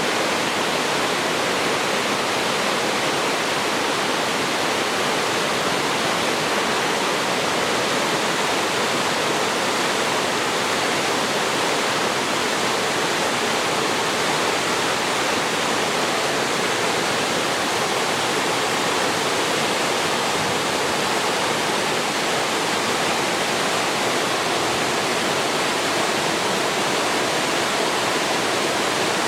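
Waterfall crashing into a rocky mountain-valley pool: a steady, unbroken rush of falling water.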